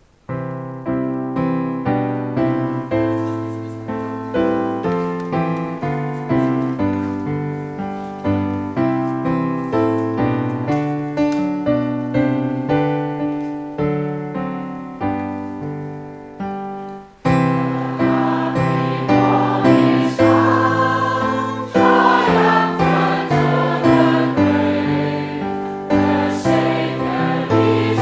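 Piano plays the hymn tune alone as an introduction. About seventeen seconds in, a group of voices joins, singing the hymn in harmony with the piano accompanying.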